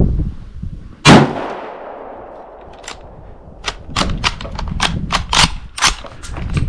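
A single shot from a Yugoslavian M95M straight-pull rifle in 8mm Mauser: a sharp crack with a long fading echo. About two seconds later comes a quick string of a dozen or so short, sharp clicks and clacks.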